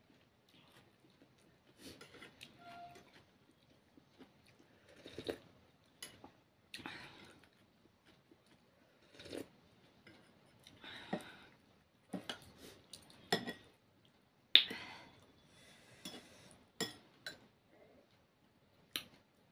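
Someone eating noodle soup: short slurps and chewing, with metal spoons clinking against a ceramic bowl and a glass dish. The loudest sound is a sharp clink about three-quarters of the way through.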